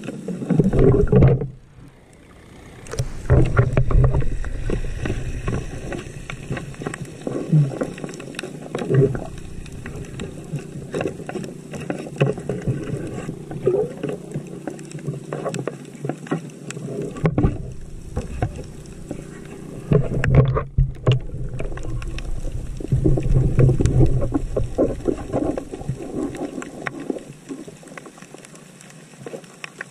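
Underwater audio of a diver's exhaled air bubbles rumbling past the camera in bursts every few seconds, with a steady crackle of clicks in between.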